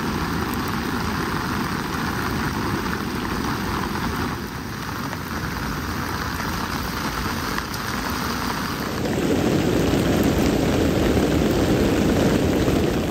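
Torrential rain pouring down in a steady rush, growing heavier about nine seconds in.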